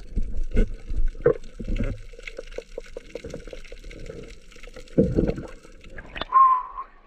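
Water sloshing and gurgling in the shallows, with irregular knocks and splashes and a louder splash about five seconds in. A short, steady high tone starts about six seconds in.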